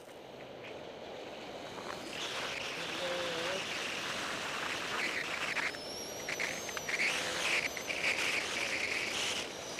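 Skis or a snowboard sliding and carving fast on groomed, tracked snow: a steady scraping hiss that grows louder as speed picks up, with uneven surges as the edges bite into turns.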